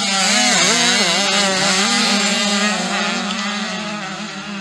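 Motocross bike engines revving hard close by as riders work the throttle through a dirt turn, the pitch rising and falling over and over. Loud from the start, easing off slightly toward the end.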